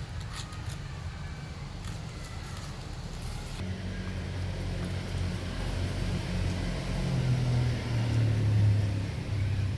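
A low engine hum sets in about a third of the way through and grows louder, peaking shortly before the end, after a few light clicks at the start.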